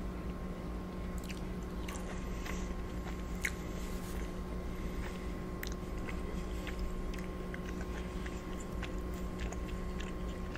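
Close-miked chewing of soft lobster ravioli, a run of small wet mouth clicks and smacks, over a steady electrical hum.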